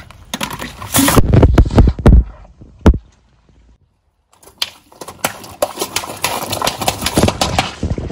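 Car tyre rolling over and crushing a plastic soda bottle, with loud crunching and bangs as the bottle bursts. After a short silence, a quick run of sharp cracks and crackles as the tyre crushes a row of small plastic cups.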